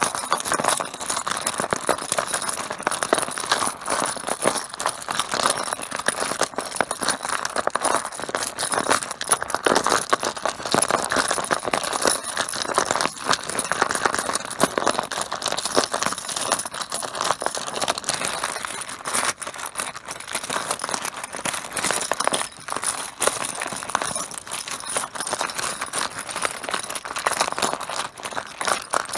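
Mahjong tiles clattering continuously, a dense run of small hard knocks and clicks as the tiles strike and slide against one another.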